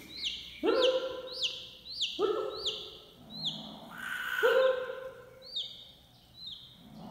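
Baby chicks peeping over and over in short, high, falling chirps, about two a second, while a cat calls three times in drawn-out meows, begging for food.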